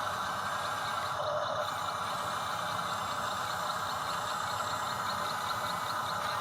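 Steady whine of an RC construction machine's small electric motors and gearing, with a fast regular ticking of about three to four a second starting a little over a second in.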